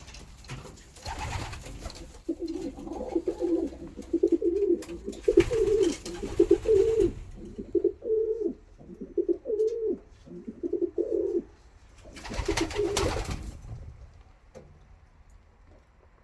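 Racing homer pigeons cooing, a long run of repeated low coos that stops about three-quarters of the way through. Three louder bursts of noise come in, near the start, in the middle and near the end.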